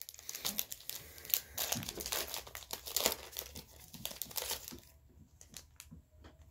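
Foil Pokémon booster pack wrapper crinkling and crackling as it is torn open and handled, thinning out after about five seconds.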